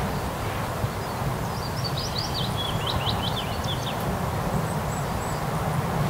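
Steady rush of autobahn traffic noise. A small bird sings a short phrase of quick high chirps over it from about a second and a half in.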